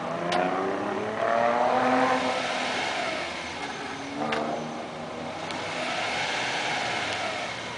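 Hyundai Accent hatchback's engine revved in place three times: a long rev over the first couple of seconds, a short blip about four seconds in, and a slower rise and fall near the end, its pitch climbing and dropping with each rev.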